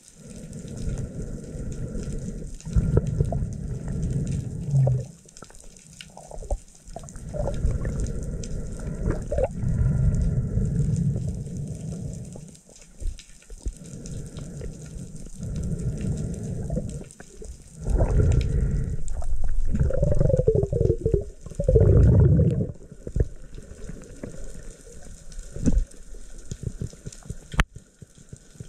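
Underwater water noise picked up by a diver's camera: low rumbling surges of moving water that come and go every few seconds, with a louder gurgling stretch about two-thirds of the way through.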